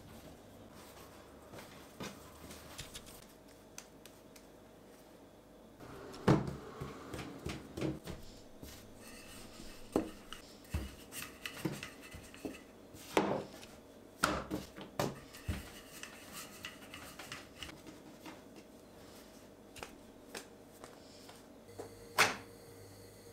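Hands kneading and pressing soft bread dough on a wooden tabletop, then a rolling pin rolling out the dough, with many sharp knocks and clicks on the table. Near the end comes one loud sharp knock as the frying pan is set down on the gas hob.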